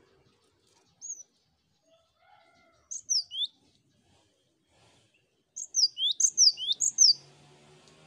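Cinereous tit (gelatik batu) singing. It gives sharp, high, downward-sweeping whistled notes: one short note about a second in, a pair around three seconds, then a quick loud run of about six near the end.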